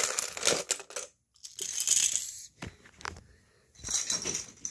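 Loose plastic Lego bricks clattering as a scoop of them is dropped into a clear plastic bin, in three bursts of rattling clicks, the last near the end.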